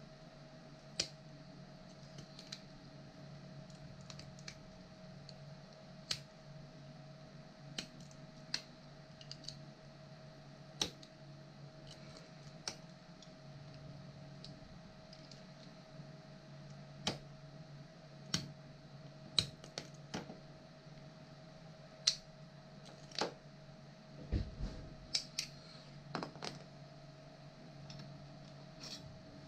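Irregular light clicks and taps of small hard objects being handled, about twenty of them spread unevenly with a quick cluster near the end, over a steady low hum.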